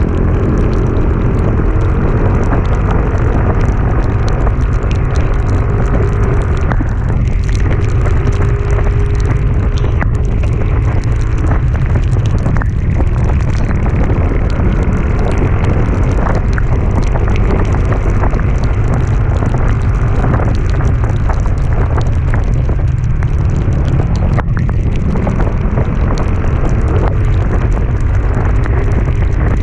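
Heavy wind buffeting on the microphone of a moving vehicle climbing uphill, with the engine's hum faintly underneath, its pitch wavering up and down.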